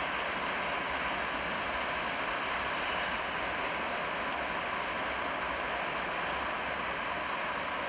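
Steady, even rushing noise of a distant electric freight locomotive approaching slowly through a rail yard, mixed with general traffic ambience.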